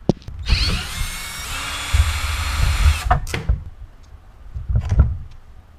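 Electric drill/driver with a star (Torx) bit spinning up and running for about two and a half seconds, backing a screw out of the string trimmer's housing. A few sharp knocks follow, twice, as parts are handled.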